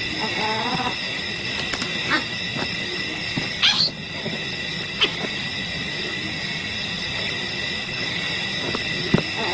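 Night bush ambience: a steady, high insect chorus in several ringing bands, broken by a few sharp clicks. There is a short rising squeak a little under four seconds in, and a brief pitched call near the start.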